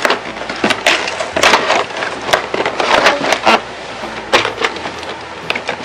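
A cardboard toy box being torn open and handled by hand: a quick run of short rips, rustles and knocks.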